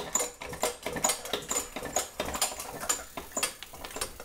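Homemade centrifugal reciprocating air compressor, a bicycle frame rocking a modified air cylinder's PVC piston, working up and down in a steady rhythm of about two knocks a second, each with a brief high squeak.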